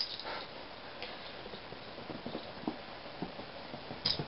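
Light, scattered thumps and taps on a foam puzzle play mat as Manx kittens scamper and pounce after a feather wand toy.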